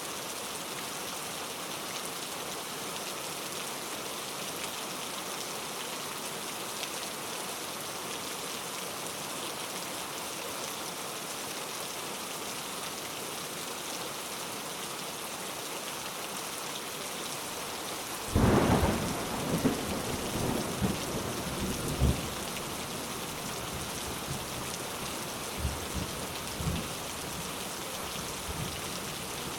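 Steady heavy rain hissing, then about two-thirds of the way through a sudden sharp thunderclap followed by several seconds of rolling, rumbling thunder that fades away.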